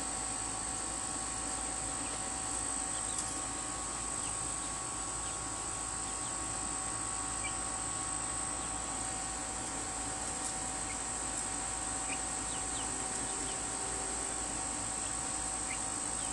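Steady high-pitched trilling of crickets, with a few faint short peeps from Golden Comet chicks now and then.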